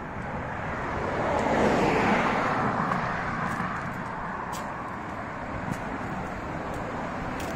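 A car passing by on the road, its tyre and engine noise swelling to its loudest about two seconds in and then fading away.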